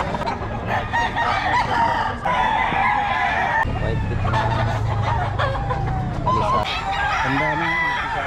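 Several gamefowl roosters crowing and clucking, their calls overlapping with no break.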